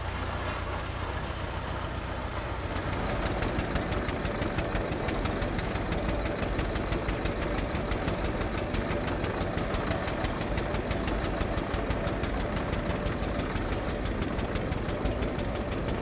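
An engine running steadily with a fast, even knocking beat. The sound changes and the beat grows sharper about three seconds in.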